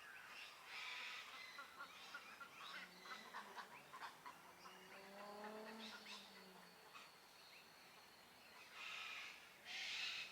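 Faint lakeside dawn chorus of mixed birds: many short chirps and calls, one low drawn-out call in the middle, and two harsh screeching calls near the end.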